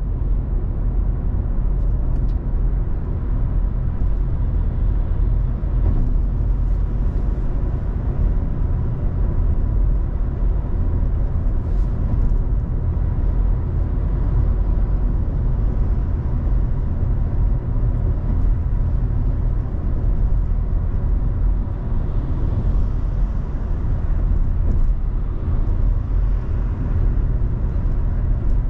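Car driving along a road: steady low rumble of engine and tyre noise.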